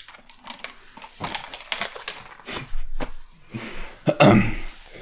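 Irregular clicks and taps with short crunching, rustling noises, louder about four seconds in: someone handling and eating from a bowl of candy brew.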